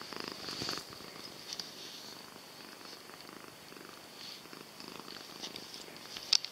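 Domestic cat purring steadily, recorded with the microphone close against its fur, with brief scratchy noises and a single sharp click about six seconds in.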